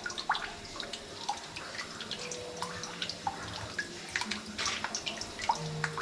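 Water dripping and trickling into a pool in a limestone cave: many small, irregular drips and plinks over a faint steady trickle.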